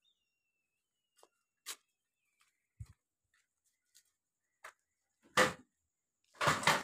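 A few sparse clicks and light knocks, then two louder scuffing knocks near the end, the last one the longest and loudest.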